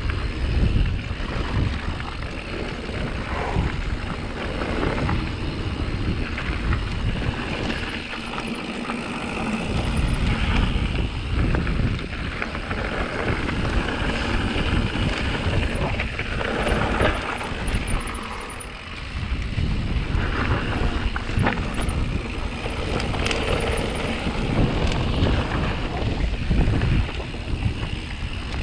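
Wind buffeting an action-camera microphone and mountain-bike tyres rolling fast over a dirt and gravel trail on a downhill run. A steady, rough noise with a heavy low rumble that swells and eases with speed, dipping briefly twice.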